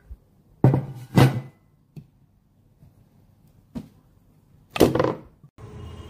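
Four loud knocks from handling a pot's glass lid, two close together at about a second in and two more a few seconds later. Near the end the sound cuts abruptly to a steady hiss.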